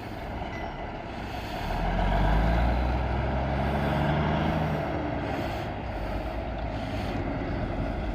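Old dual-stack diesel tow truck engine pulling away under load with a delivery truck on its hook. It gets louder about two seconds in as the engine note climbs, then settles into a steady run.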